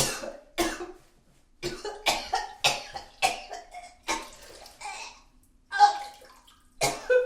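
A person retching and vomiting: about a dozen short, forceful heaves in quick succession with gaps between them, some with a strained voice in them and some wet and gurgling.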